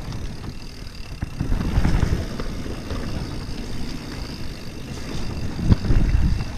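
Mountain bike rolling fast down a forest dirt trail: tyre rumble and wind buffeting the handlebar-mounted camera's microphone, with small knocks and rattles from the bike over the ground. The rumble surges twice, about two seconds in and most strongly near the end.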